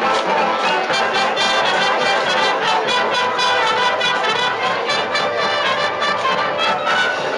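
High school marching band playing, brass to the fore with trumpets and trombones, drums keeping a steady beat.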